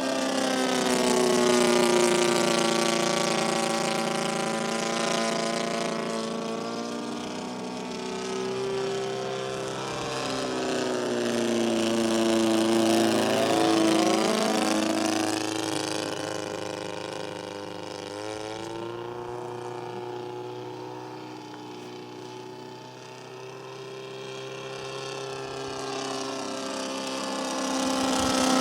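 ASP 160 twin-cylinder glow engine of a large RC model plane running in flight. Its pitch slides up and down and its loudness swells and fades several times as the plane passes and turns.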